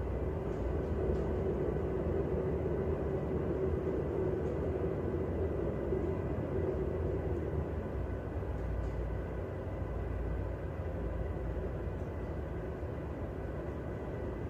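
Tugboat's diesel engines running steadily, heard from inside the wheelhouse as a constant low rumble and hum.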